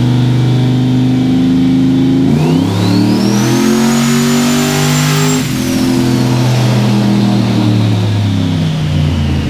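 Turbocharged 6.0-litre V8 with a billet S480 turbo under acceleration. About two seconds in, the turbo's whine rises steeply and stays high. A little after five seconds the throttle is lifted and the whine falls away while the engine keeps running.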